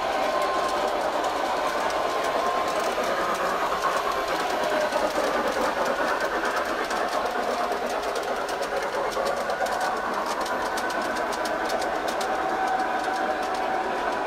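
Model train running on layout track: a steady electric motor whine and gear hum, with a quick run of small clicks from the wheels over the rail joints through the middle and latter part.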